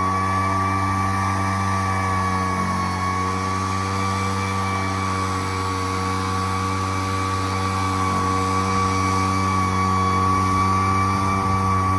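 Poulan Pro gas backpack leaf blower running steadily at high speed: a constant engine drone with a high fan whine.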